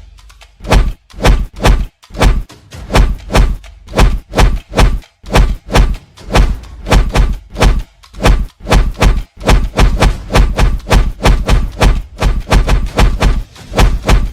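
A fast run of heavy thuds, like punches and kicks landing, about three a second at first and quickening to about four a second after the middle.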